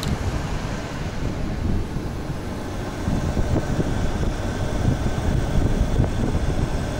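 Steady low rumble of a moving vehicle with wind noise, as from a motorhome on the road.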